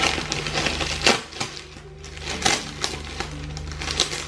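Cardboard shipping box flaps being handled and folded open by hand: a series of scrapes, taps and crinkles, the sharpest about a second in. Soft background music plays underneath.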